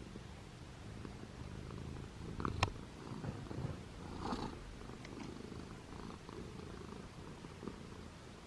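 A cat purring, a low steady rumble, with a sharp click about two and a half seconds in.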